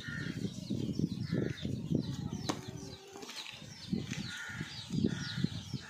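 Shuffling and handling noises as a steel lid of water is carried, over faint, high, short peeping of day-old chicks that grows clearer near the end.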